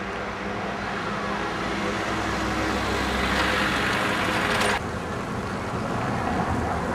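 Street traffic: a steady rumble of engines, with one vehicle growing louder over a couple of seconds. Its sound cuts off abruptly about two-thirds of the way through, where a quieter traffic background takes over.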